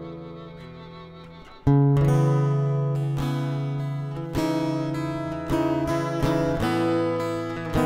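Background music on strummed acoustic guitar: a chord rings and fades, then a loud new chord is struck about one and a half seconds in, followed by more strums every second or so.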